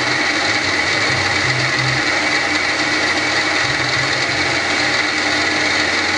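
Small milling machine running steadily with an even whine, its spindle turning an end mill during step-off milling of a miniature camshaft's lobes from steel drill rod.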